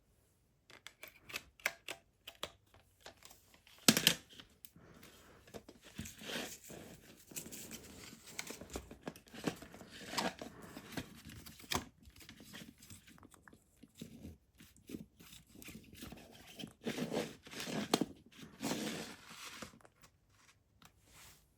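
CD packaging being handled: plastic and paper crinkling and tearing in irregular rustles, with sharp clicks of the hard case. The loudest click comes about four seconds in, and a longer run of crinkling comes near the end.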